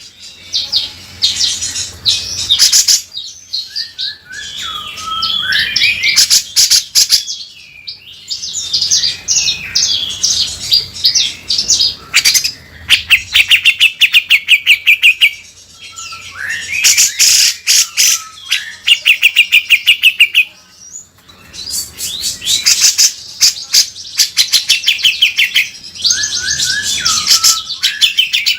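Grey-cheeked bulbul (cucak jenggot) singing a loud, harsh chattering song in repeated bursts, with fast rattling runs of rapidly repeated notes and short pauses between phrases.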